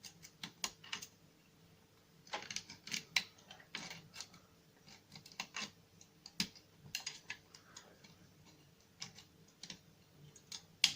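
Small, irregular metallic clicks and ticks of a lever pick lifting and setting the levers inside a three-lever lock, the bolt held under tension.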